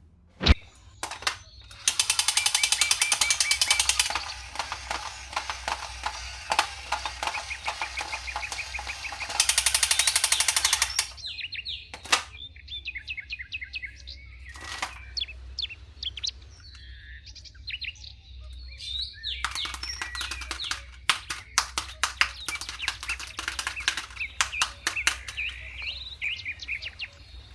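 Crinkling, rattling and clicking of toy packaging being handled and opened, loudest in two bursts near the start and a run of sharp clicks later on. Birds chirp in the background.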